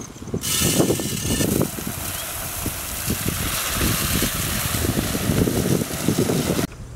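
Dry basmati rice pouring from a bag into an aluminium pot of water: a steady hiss of falling grains that stops abruptly near the end.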